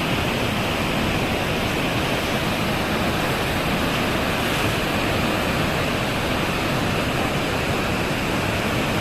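Steady rush of fast-flowing floodwater in a river, an even, unbroken noise.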